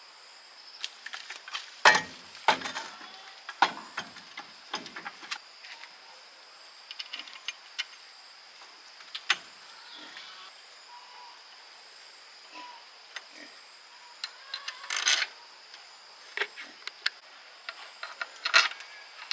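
Scattered clicks, knocks and metallic clinks of hand tools and gearbox parts being handled during a truck transmission repair. The sharpest knocks come about two seconds in, in a short cluster around fifteen seconds, and once near the end.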